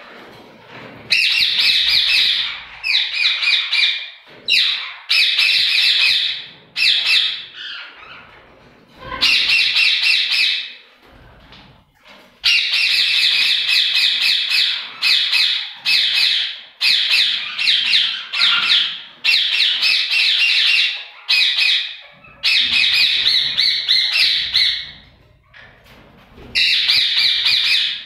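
Green parakeets screeching loudly: harsh, rasping calls that start about a second in and come in runs lasting from under a second to several seconds, with short pauses between.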